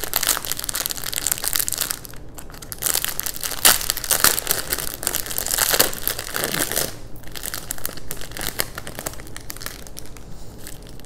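Plastic packaging of nail supplies crinkling and rustling as it is handled, with irregular crackles and sharper rustles throughout.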